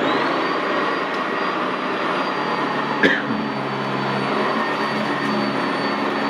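Sanitaire SC679J commercial upright vacuum cleaner running steadily on carpet, its motor giving a high whine over a rushing air noise. There is one sharp click about three seconds in.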